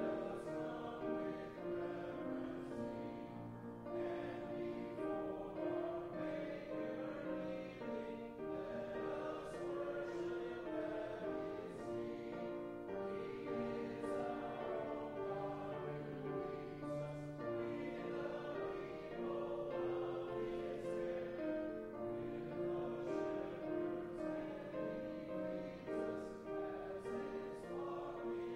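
Church congregation singing a hymn together, with slow held notes and instrumental accompaniment.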